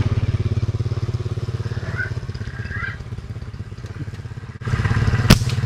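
Motorcycle engine running steadily nearby, a low pulsing hum, with a single sharp snap near the end.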